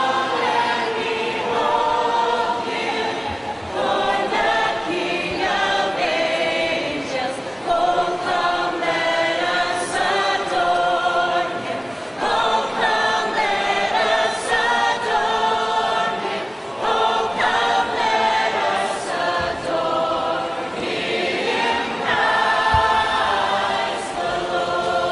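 Choir of men and women singing together in sustained phrases, with brief breaks between lines.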